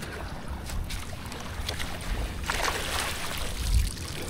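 Wind buffeting the microphone as a low, steady rumble, with a brief louder hiss about two and a half seconds in and a dull thump near the end.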